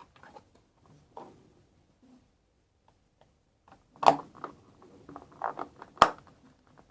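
Plastic thermometer case being handled during reassembly: light scraping and tapping, with two sharp clicks about four and six seconds in.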